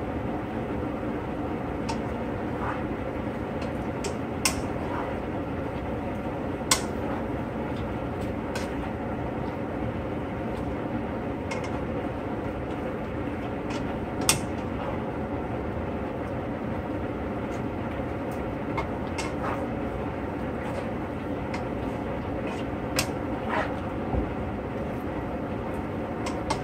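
Beef and marinade cooking in a skillet over a gas burner, the liquid boiling off with a steady bubbling hiss. A few sharp clicks of a spatula against the pan break through it, the clearest at about 4, 7 and 14 seconds in.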